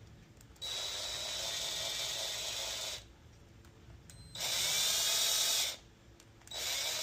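Power drill running in three bursts: a long one of about two seconds, a shorter one, and a third starting near the end.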